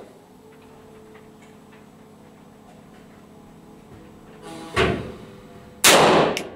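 Two pistol shots about a second apart near the end, the second louder and longer, over a steady low hum.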